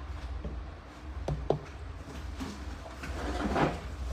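Two quick light knocks a little over a second in, then a short rustling swell near the end, over a steady low hum.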